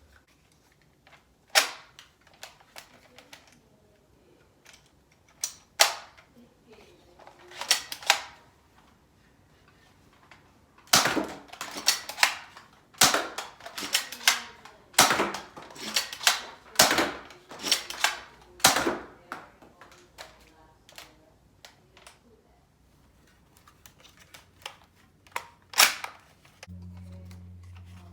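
Nerf Spectre Rev.5 spring-powered revolver dart blaster being primed and fired over and over, loaded with X-Shot darts. Each shot is a sharp pop, with smaller mechanical clicks between shots. The shots are spaced out at first, then come about once a second for several seconds in the middle.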